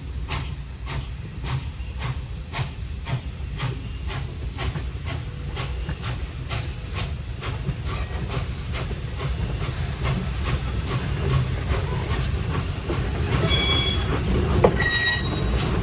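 Norfolk and Western J Class 611 steam locomotive pulling away, its exhaust chuffing in an even beat that starts at about two a second and quickens as it gains speed, with steam hiss. Two short high-pitched tones sound near the end.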